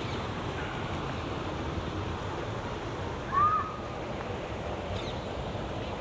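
Steady rushing of the River Crane flowing, with a single short bird call about three and a half seconds in and a couple of fainter chirps around it.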